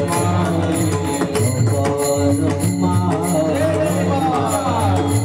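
Marathi devotional kirtan music: a melody chanted and sung over a steady, jingling percussion beat.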